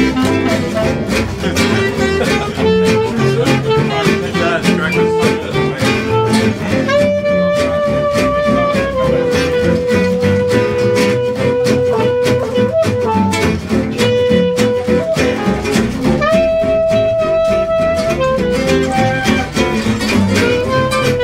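Small acoustic swing-jazz band playing: steadily strummed guitars and double bass keep the rhythm, and from about seven seconds in a lead line plays long held melody notes.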